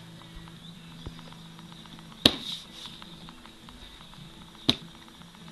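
Two sharp knocks about two and a half seconds apart, over a faint steady hum.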